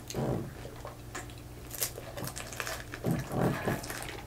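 Close-up eating sounds: crunching bites of hard taco shells and wet slurps and swallows from a drink, in short scattered bursts.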